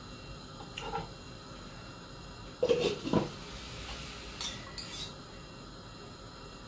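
Metal spoon clinking and scraping against a ceramic bowl as beans are scooped up and eaten, with a few sharp clinks about four to five seconds in. A louder brief sound comes about three seconds in.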